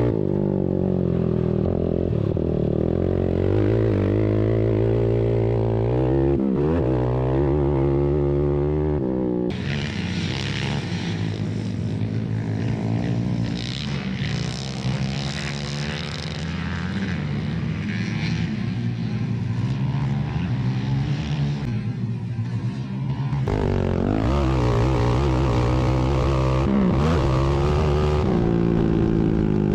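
ATV engines racing, revving up and down so the pitch rises and falls again and again. About ten seconds in, the sound switches abruptly to a harsher, noisier engine sound, then switches back to the clearer engine note about two-thirds of the way through.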